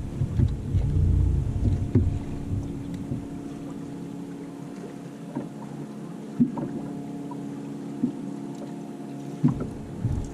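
Electric trolling motor humming steadily, with low rumbling in the first couple of seconds and again near the end, and a few scattered clicks.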